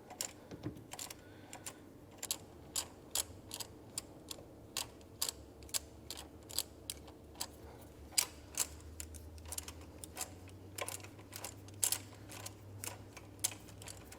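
Ratchet wrench clicking in short, repeated strokes, about two or three clicks a second, as a thread-repair tap is backed out of a freshly tapped spark plug hole in an aluminum cylinder head.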